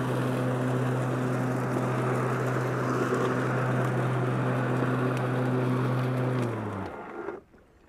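Powersmart 80-volt cordless 26-inch twin-blade mower running, a steady electric-motor hum over the rush of the blades cutting grass and leaves. Near the end the motors wind down quickly and stop.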